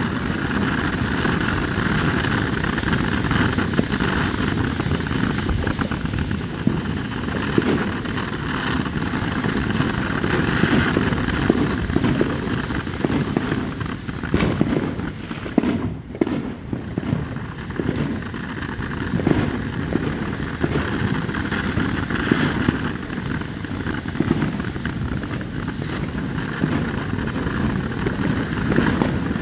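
Two DFS King Fish firework fountains burning, a steady rushing hiss of spraying sparks without bangs, thinning briefly about halfway through.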